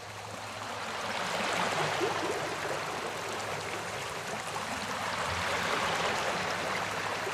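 Surf washing up a sandy beach: an even hiss of foaming water that swells twice as waves run in.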